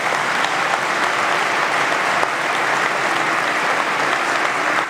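Members of parliament applauding, with many hands clapping together in a dense, steady round of applause.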